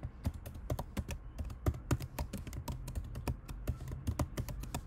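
Typing on a computer keyboard: an uneven run of key clicks, about five a second.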